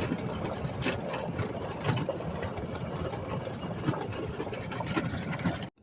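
A small engine running steadily, with rattling and scattered clicks, cut off suddenly near the end.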